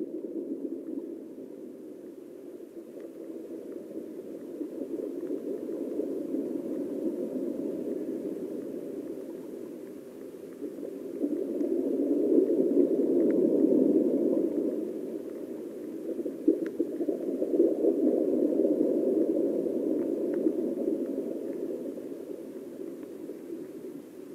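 Muffled underwater water noise picked up by a submerged camera, a low rushing hiss that swells louder about halfway through and again a little later. A few faint ticks sound over it.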